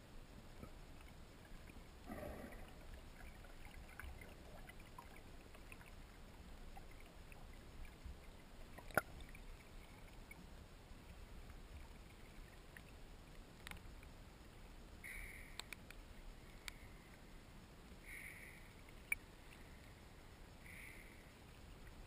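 Faint water sounds at a camera held at the surface of a freshwater lake: a low rumble with a couple of sharp clicks, then, from about two-thirds of the way in, soft splashing swishes roughly every three seconds from a swimmer's strokes.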